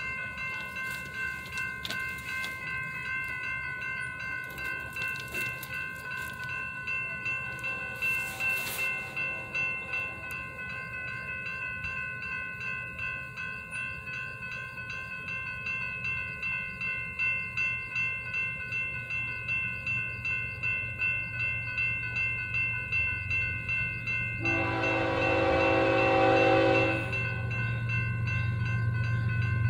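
Railroad grade-crossing bell ringing steadily, about two strokes a second. About 25 seconds in, a freight locomotive's horn sounds one blast of about two and a half seconds, and the low rumble of the approaching train grows toward the end.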